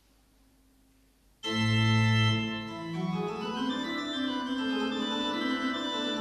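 Church pipe organ starts playing about a second and a half in, opening with a loud held low chord, then moving on into slowly changing chords.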